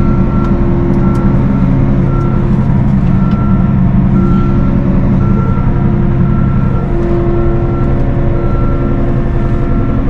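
A large farm machine's engine running steadily while it backs up, its reverse alarm beeping about twice a second.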